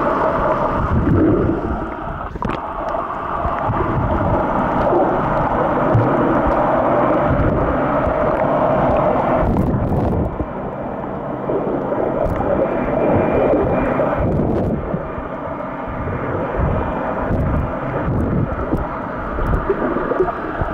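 Muffled rumbling and gurgling of water heard by a camera held underwater, with a faint steady drone running underneath.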